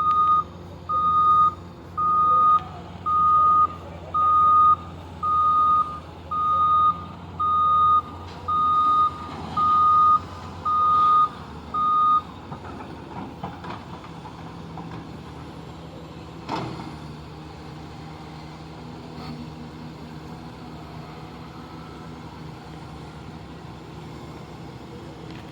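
Reversing alarm of heavy mining machinery beeping about once a second, a steady single-pitched beep, over the machine's diesel engine running. The beeping stops about halfway through and the engine keeps running, with one sharp knock a few seconds later.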